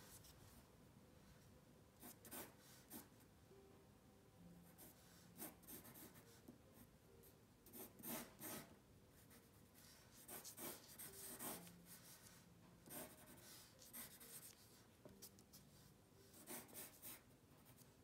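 Faint scratching of a graphite pencil sketching on paper, in short irregular strokes.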